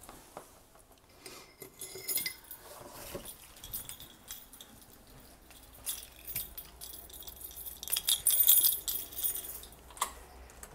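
Handling noise of a phone being carried: rustling with bursts of small metallic jingling, a short one about two seconds in and the loudest stretch around eight to nine seconds in.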